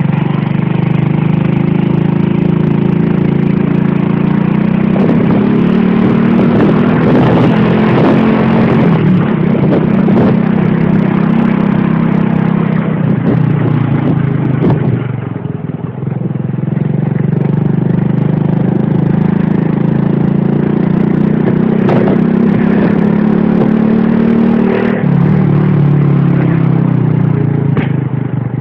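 Motorcycle engine running while being ridden, its pitch rising and falling with speed and gear changes, under heavy wind rush on the microphone. The engine note drops briefly about halfway through, then picks up again.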